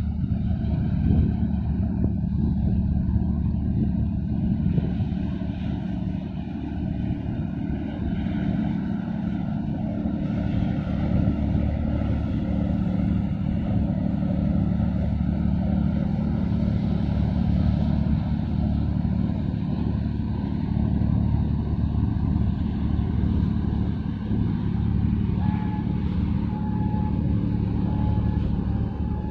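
Steady low drone of marine diesel engines from a container ship and a pilot boat passing close by, holding several deep hum tones. A faint broken high tone comes in near the end.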